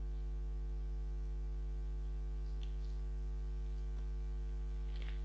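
Steady electrical mains hum, a low buzz at an even level, with a couple of faint ticks.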